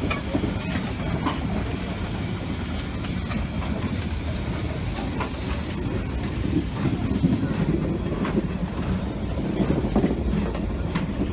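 Tender and coaches of a steam train rolling slowly past on the track: a steady low rumble of wheels on rail with occasional knocks, and several brief high squeals.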